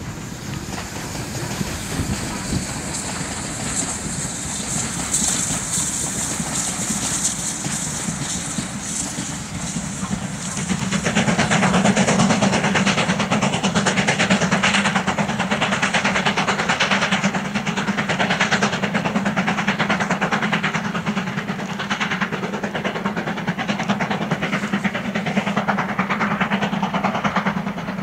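BR Standard Class 4 2-6-4 tank locomotive working a passenger train under steam, with rhythmic exhaust beats and the rumble of wheels on rail. It starts as a distant rumble with a high hiss and grows to loud, steady chuffing from about eleven seconds in as the engine draws near.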